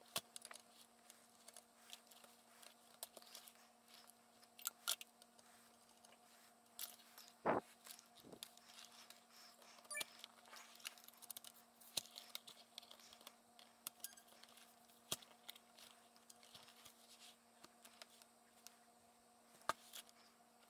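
Faint, scattered clicks, taps and scrapes of a laptop's bottom case and battery being handled and fitted back together, with one louder knock about seven and a half seconds in.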